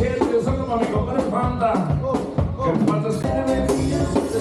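Live band music, a norteño-style group with accordion and drums playing a steady beat.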